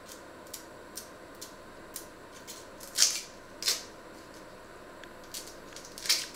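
Dry, papery onion skin crackling and tearing as it is peeled off with a small knife: a run of light clicks, with louder crackles about three seconds in, again shortly after, and near the end.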